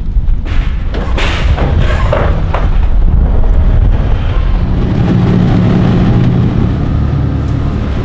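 Side-by-side UTV engine running as the machine drives off a trailer and away, with heavy wind rumble on the microphone. Its low note grows steadier and stronger about five seconds in. Near the start come metal clanks and scrapes as the trailer's ramp gate is lowered.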